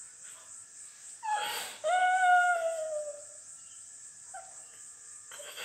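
A short yelp, then a high-pitched whimper lasting about a second and a half, its pitch sagging slightly as it goes.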